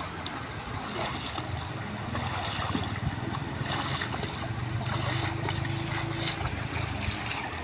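Water splashing and sloshing as a person wades through shallow floodwater carrying a wet cast net, with wind rumbling on the microphone.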